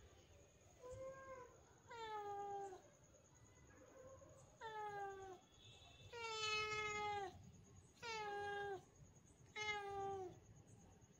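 A cat meowing over and over: six drawn-out meows, each sliding down in pitch at its end. The first is faint, and the longest and loudest comes about six seconds in.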